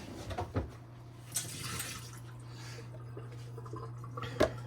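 Nespresso coffee machine's pump starting up about two seconds in and humming steadily as it pushes water and descaling solution through the machine in descaling mode. A few light knocks of handling the machine come before it and near the end.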